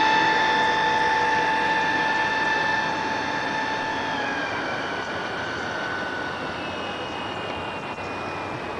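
Radio-controlled model PT boat running on the water, its motor giving a steady high whine that drops in pitch about four seconds in, then slowly fades.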